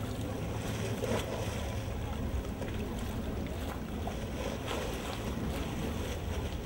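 Water lapping and splashing against algae-covered stone steps at the canal's edge, over a steady low rumble.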